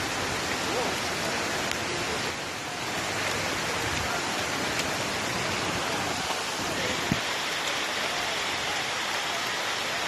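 Steady rush of a waterfall's falling water, an even hiss with no break.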